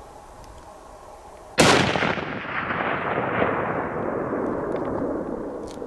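.300 Weatherby Magnum rifle firing a single shot about a second and a half in, followed by a long rolling echo that fades over about four seconds.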